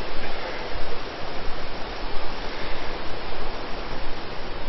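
Steady rush of water from a cascading mountain stream and waterfall.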